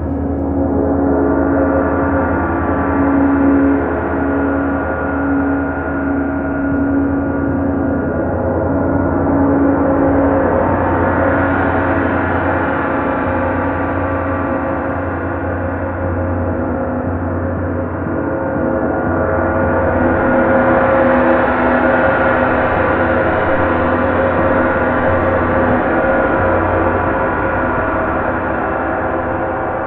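Several Paiste Bronze gongs played together with soft felt mallets: a continuous wash of many overlapping gong tones that swells twice, about ten and twenty seconds in.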